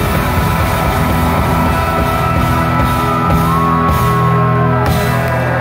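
A live rock band playing the closing bars of a song, heard from the audience: held chords over a steady low bass note, with sliding notes on top.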